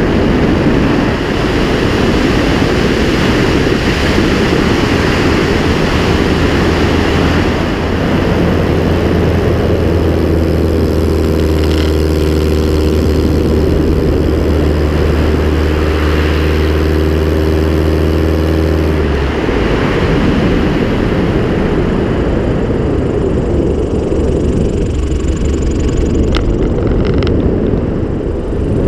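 Clipped-wing Piper Cub's Continental C-90 four-cylinder air-cooled engine and propeller running in flight, mixed with wind rushing over the camera outside on the wing strut. A steady engine hum stands out for several seconds in the middle and then drops away abruptly, leaving mostly wind noise.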